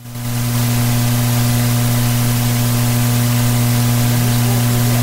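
Loud steady electrical hum with a steady hiss, cutting in suddenly: mains hum and noise on the broadcast audio line.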